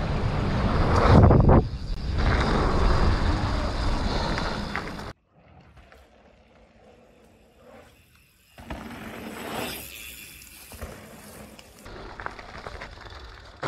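Mountain bike ridden at speed over a jump line: rushing wind and tyre noise, cutting off suddenly about five seconds in, followed by much quieter rolling noise.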